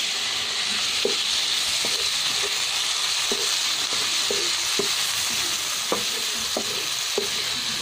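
Squid rings and white fish sizzling in melted butter and garlic in a frying pan, steady and hissing, while a wooden spatula stirs them and knocks and scrapes against the pan now and then.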